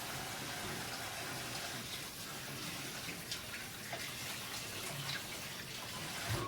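Kitchen tap running in a steady stream, with a few light knocks, then shut off sharply near the end.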